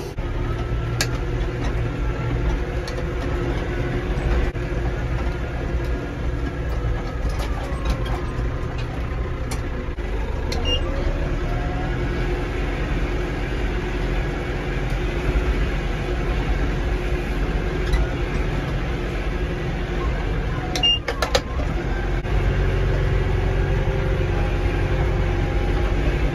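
Tractor engine running steadily while driving, heard from inside the cab as a constant low rumble, with a few light knocks and rattles and a brief clatter late on.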